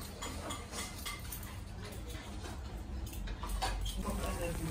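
Restaurant dining-room background: a low steady hum with scattered faint clinks of dishes and cutlery, a few more distinct ones near the end.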